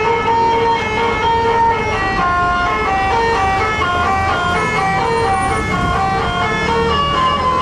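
Bus telolet horn, a multi-trumpet air horn, playing a tune of held notes that step up and down in pitch, over the rumble of a bus engine.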